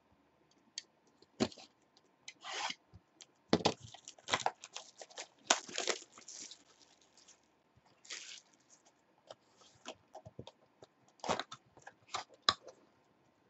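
Plastic shrink-wrap being slit with a box cutter and torn off a cardboard box of trading cards, crackling and rustling in short, irregular spells. The cardboard box lid is flipped open near the end.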